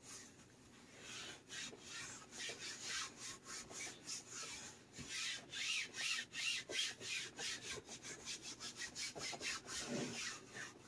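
Hands rubbing and smoothing fabric down over a wooden guitar body: a run of quick, faint swishing strokes, a few a second.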